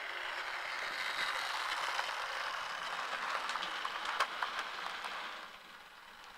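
Model train running along its track, a steady rattling whir from the motor and wheels with a few sharp clicks, getting quieter about five and a half seconds in.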